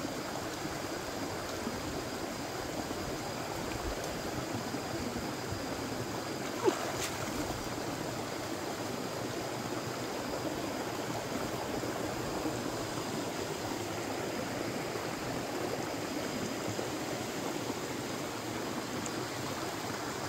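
Shallow rocky stream running steadily over stones, with a single sharp knock about a third of the way in.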